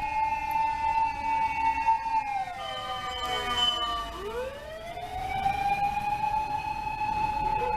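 Fire engine siren wailing. It holds a steady high pitch, falls about two seconds in, briefly overlaps a second siren tone, then winds back up and holds high again.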